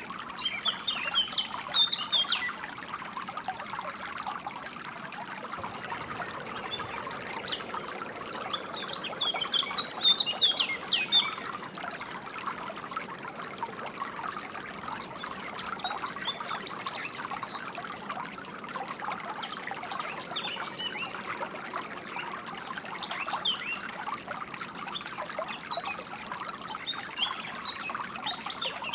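Water trickling steadily, as from a small stream, with songbirds chirping over it in short bursts: a cluster near the start, a louder one about ten seconds in, and more near the end.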